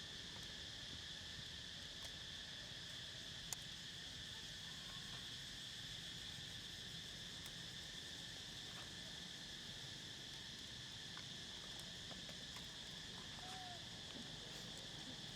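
Steady insect chorus, a continuous high-pitched buzzing drone, with one sharp click about three and a half seconds in.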